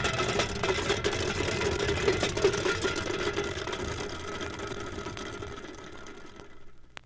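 An engine or motor running steadily, fading out over the last couple of seconds.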